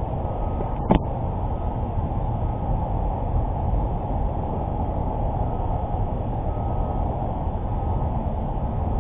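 A boat's motor running steadily under way, a low rumble. About a second in there is a single short, sharp knock.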